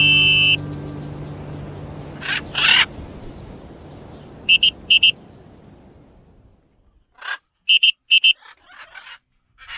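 A song's music ends and fades out; over it birds call: two short harsh squawks about two and a half seconds in, then short high chirps, twice near the middle and three times near the end.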